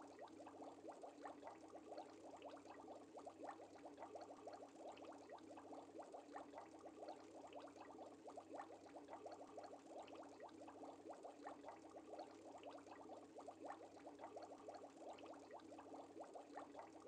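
Faint, steady bubbling of aquarium air bubbles: a continuous fizzing stream of tiny pops.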